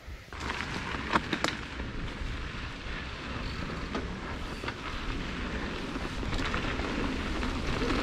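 Riding noise of a mountain bike descending a dirt trail: wind rumbling on the rider's camera microphone over tyre noise, with a few sharp knocks and rattles from the bike.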